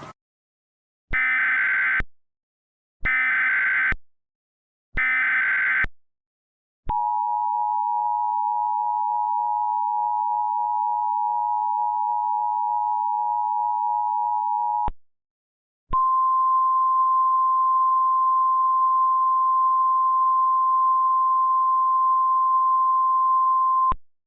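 Emergency Alert System tones. First come three one-second bursts of SAME header data, screechy digital warbling. Then the two-tone EAS attention signal (853 and 960 Hz together) holds steady for about eight seconds. After a brief pause, a single steady 1050 Hz weather-radio alert tone sounds for about eight seconds.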